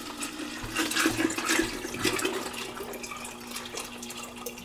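Water pouring and splashing into a wet rotary tumbler drum that holds 9mm brass casings, as the drum is filled for cleaning.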